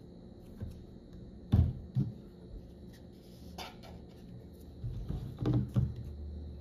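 Knocks and clatter of hair-dye bottles, a tube and a plastic mixing bowl being handled and set down on a marble tabletop. There are several sharp thumps, loudest about a second and a half in, in a cluster near the end, and once more right at the end, over a faint steady hum.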